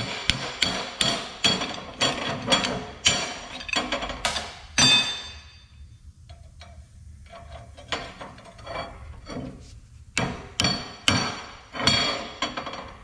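Hammer striking steel in a run of sharp, ringing blows about two a second. After a stretch of lighter taps and knocks, another run of blows starts about ten seconds in. The blows are knocking a torch-heated nut and bolt loose from old plow iron.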